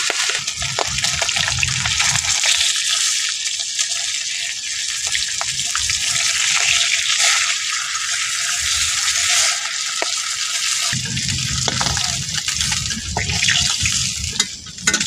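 Pomfret steaks sizzling as they fry in hot oil in an aluminium karahi: a steady hiss, with occasional light clicks of a metal spatula against the pan.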